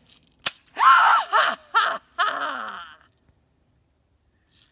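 A single sharp handgun shot about half a second in, followed by a woman's loud wordless cries in four bursts that trail off by about three seconds.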